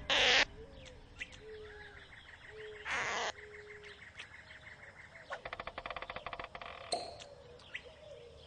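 Cartoon sound effects: two short noisy slurps, one at the start and one about three seconds in, as a lollipop is sucked, with short chirping calls between them. A rapid buzzing rattle follows for about a second and a half past the middle, ended by a sharp click.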